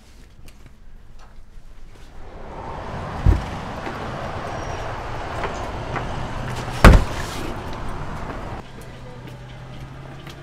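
Two heavy thumps about three and a half seconds apart, the second the loudest, over a rushing noise that sets in about two seconds in and drops away near the end, with a low steady hum underneath.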